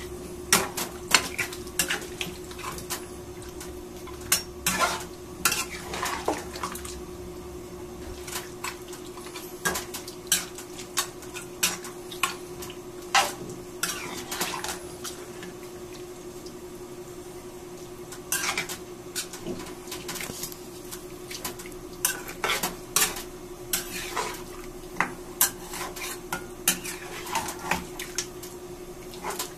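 Metal spatula scraping and knocking against a frying pan as chunks of beef are stirred and coated in a wet spice paste, in irregular clatters. A steady low hum runs underneath.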